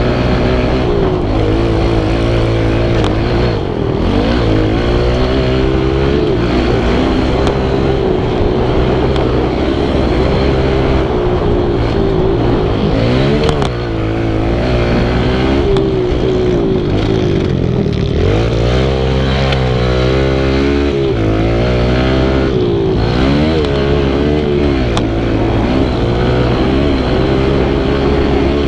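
Kawasaki KLX110 pit bike's small four-stroke single-cylinder engine, heard from on board while riding, revving up and falling back over and over as the throttle is worked. There are two brief throttle-offs, a few seconds in and about halfway through.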